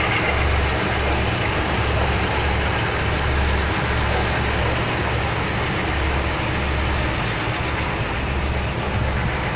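Freight train of diesel locomotives and wagons rolling past on the track: a steady, loud running noise with a low throb that pulses about once or twice a second.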